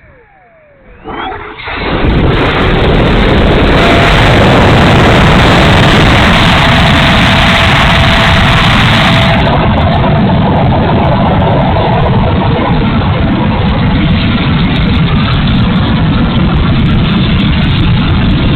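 Twin 64 mm electric ducted fans spooling up about a second in, then running at high power with a loud, steady rush that eases slightly past the halfway point.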